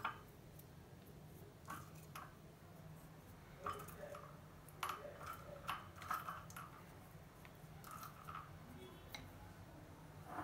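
Faint scattered clicks and light handling noises as almonds are picked by hand out of a small glass bowl, over a low steady hum.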